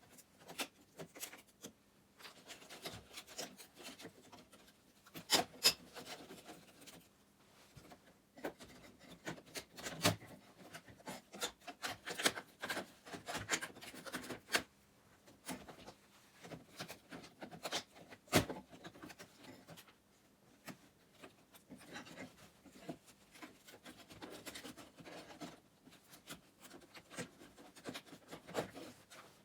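Old wooden roofing being stripped by hand: irregular scraping and rubbing of wood with scattered sharp knocks and cracks as rotten boards and birch bark are pulled and prised off.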